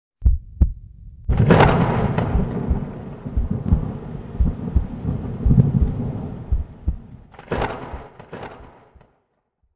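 Thunder sound effect: a sharp crack just after the start, a louder crack about a second in that rolls into a long rumble, and a second crack near the end before it fades out.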